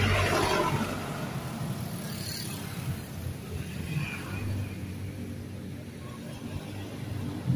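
Road traffic of motorcycles and motorcycle tricycles passing. One vehicle is loudest right at the start and fades away over a second or so, over a steady low engine drone.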